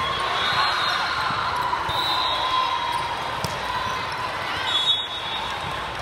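Indoor volleyball game: the ball thudding off hands and floor, sneakers squeaking on the court, and voices around the gym.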